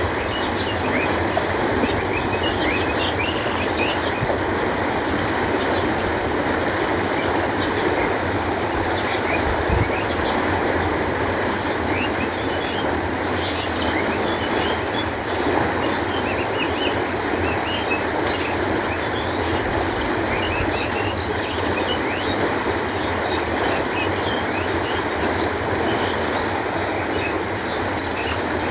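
Canal water flowing steadily, a continuous even rush of water, with small birds chirping now and then above it in short, high calls.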